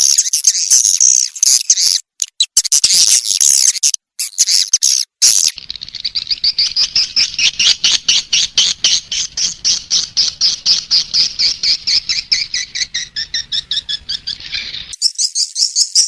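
Edible-nest swiftlet calls from a recorded lure track: dense high twittering chirps with short breaks. About five seconds in, this gives way to a long run of rapid clicking twitters with a faint low hum underneath, which cuts off abruptly near the end into another burst of high chirping.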